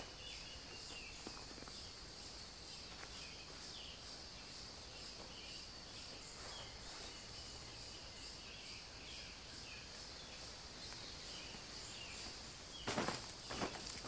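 Tropical rainforest insects making a steady, rhythmically pulsing high drone, with scattered short chirps from other animals. About a second before the end come louder rustling and knocking noises.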